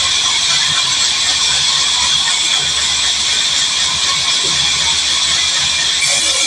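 Large sawmill band saw running steadily, a constant loud mechanical hum with a high ringing tone over hiss; the sound shifts slightly near the end.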